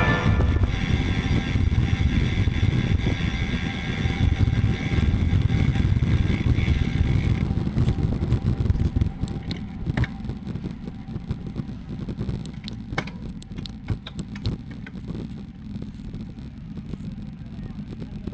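Wind rushing over the microphone and road-bike tyres rumbling on asphalt while riding, with scattered clicks and rattles. A faint steady high tone stops suddenly about seven seconds in.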